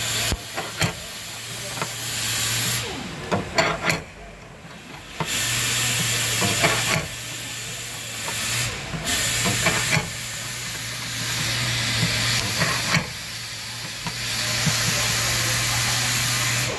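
Stud-welding dent puller with a triangle tip working on a car's steel sill: repeated stretches of steady electric hum and hiss, each a second or more long, as the tip is welded on and the dent is pulled, broken by sharp clicks and snaps.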